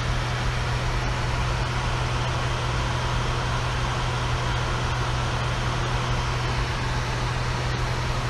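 Steady rushing noise inside an airliner's flight deck in cruise flight, with a constant low hum beneath it.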